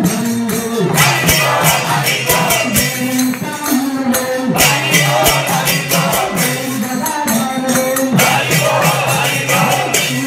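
Devotional kirtan: a group of voices chanting together on a stepped melody, with jingling hand percussion keeping a steady quick beat.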